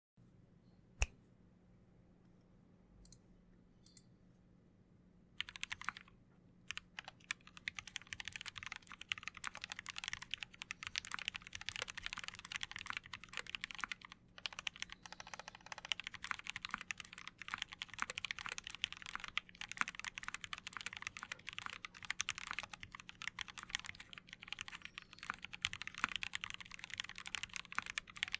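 Typing on a custom mechanical keyboard with lubed, filmed Gateron Yellow linear switches in a brass plate with foam between PCB and plate. A few scattered clicks, then fast continuous typing from about five seconds in.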